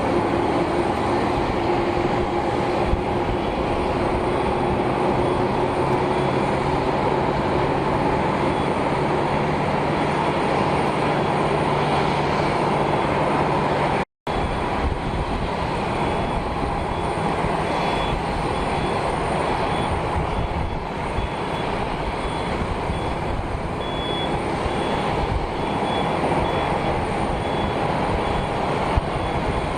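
Steady roar of jet aircraft engines with a few steady tones over a broad rush of noise, cut off for a split second about halfway through.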